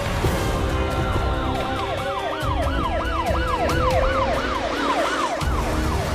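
Siren wailing in a rapid yelp, its pitch sweeping up and down about three times a second, over background music.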